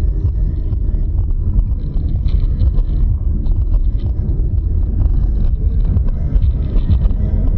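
Steady low rumble of a car driving in traffic, engine and tyre noise heard inside the cabin through a dashcam's microphone, with faint scattered ticks and rattles.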